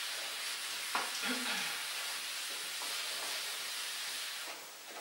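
Steady background hiss of the recording, with one faint click about a second in and a brief soft murmur just after it.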